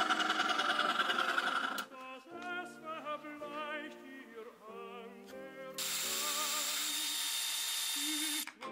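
A cordless drill runs for about two and a half seconds near the end, boring into a wooden board with a steady whine, then stops suddenly. Before it, background music with an operatic singing voice, and at the start a fast, even buzzing that stops about two seconds in.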